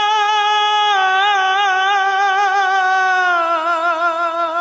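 A single voice sings one long held note at the end of a line of a sad Telugu song, with no instruments heard. The note holds steady, then steps down a little with a wavering vibrato about a second in, and drops again near the end.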